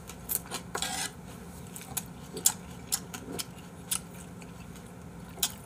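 Eating sounds at a table: scattered light clicks and taps of eating utensils against dishes and food containers, with a short rustling scrape about a second in, over a faint steady hum.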